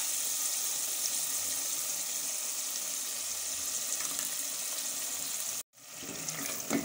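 Onion-tomato masala sizzling steadily in oil in a pot. Near the end the sound breaks off for a moment, then a wooden spoon stirs it.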